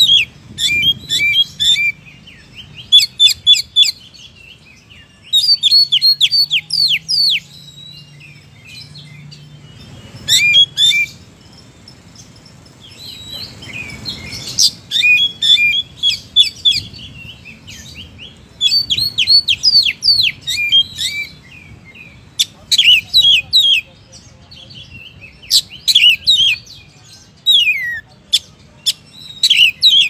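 Male oriental magpie-robin singing: loud, rapid phrases of clear whistled notes, mostly quick downward sweeps, with short pauses between phrases and a longer pause a little before the middle.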